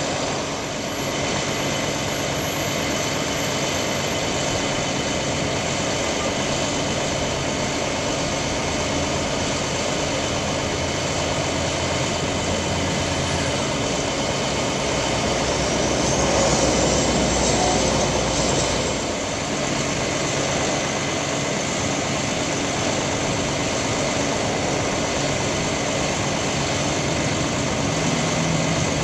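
Engine of a utility bucket truck running steadily at idle, driving the hydraulics as the Altec aerial boom swings and lowers. It grows louder for a few seconds a little past the middle, with a faint rising whine.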